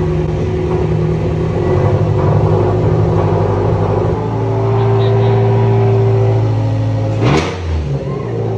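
Subaru WRX STI's turbocharged flat-four, just started after fitting new headers, up-pipe and wastegate, running loud. It is uneven at first, settles into a steady fast idle about four seconds in, and gives a brief sharp burst about seven seconds in, after which the idle drops.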